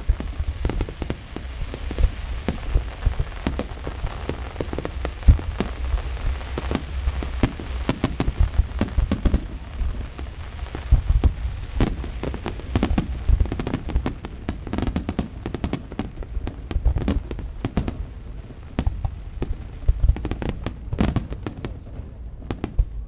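Fireworks display going off in a rapid, continuous barrage: many sharp cracks and bangs over deep booms, with no pause.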